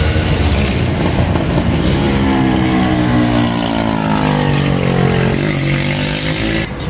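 A motor vehicle engine passing on the road over steady traffic rumble, its note rising and then falling over a few seconds.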